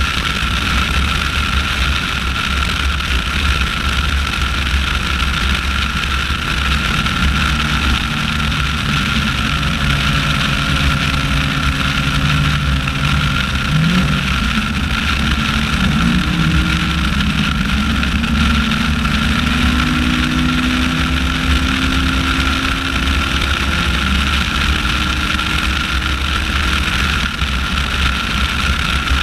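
A 1999 Yamaha R1's inline-four engine idling close by, its pitch wavering and rising in short blips from about seven seconds in until near twenty-four seconds. Under it runs a steady low vehicle rumble with a constant thin whine.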